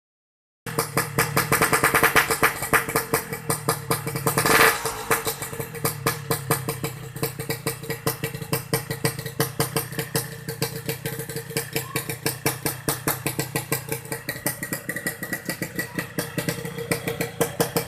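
Yamaha RX-King's two-stroke single-cylinder engine idling with a fast, uneven popping pulse. It is revved briefly about four and a half seconds in, then settles back to idle.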